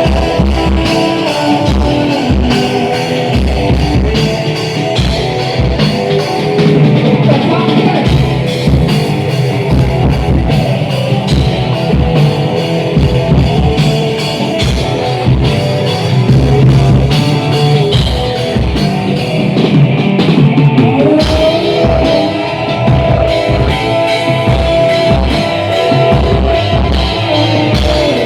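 A rock band playing loudly with drum kit, electric guitar and bass.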